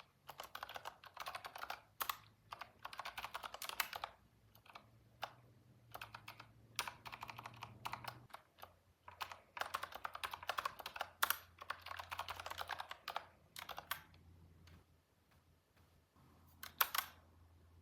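Typing on a computer keyboard in quick bursts of key clicks with short pauses between runs, as code is entered.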